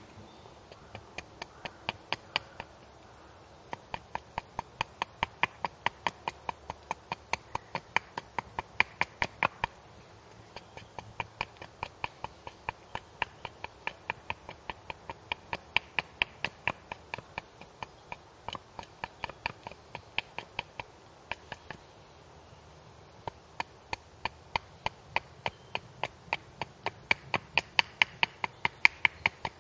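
Small hatchet chopping short, light strokes into a piece of wood to shape a wooden splitting wedge, about three sharp chops a second in runs of several seconds with brief pauses.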